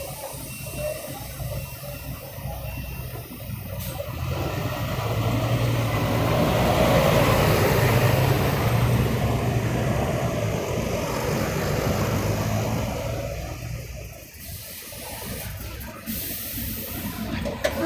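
City street traffic with a vehicle passing close: its engine hum and tyre noise swell up, peak and fade away over several seconds, and the traffic noise carries on behind.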